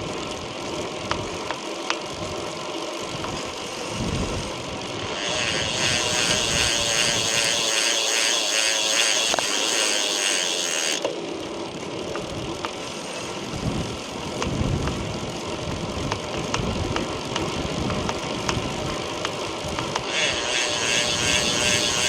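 Chris King R45D bicycle rear hub's freewheel ratchet buzzing in a fast, even ticking, from about five seconds in until about eleven seconds, and again near the end. Between these it is quieter, with a few sharp clicks. This is the hub's abnormal crackling noise, which came back after an earlier repair.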